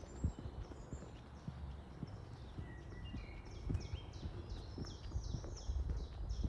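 Footsteps of someone walking at an even pace, each step a dull thump. A songbird sings a fast series of repeated high notes from about halfway through.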